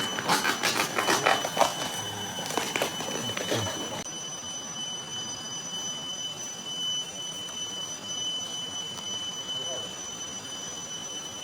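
Steady high-pitched insect drone, with a rapid clatter of clicks and rustles over it for the first few seconds.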